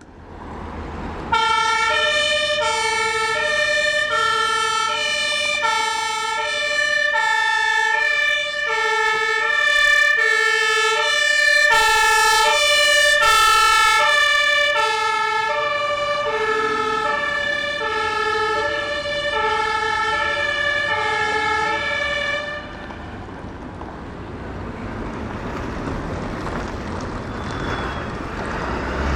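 German two-tone emergency vehicle siren (Martinshorn) sounding its alternating high and low notes, switching about every 0.7 s. It cuts off about 22 seconds in, leaving vehicle engine and road noise.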